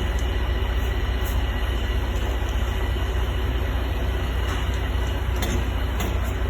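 A steady low rumble and hum, unchanging throughout, with a faint high steady whine above it and a few faint clicks.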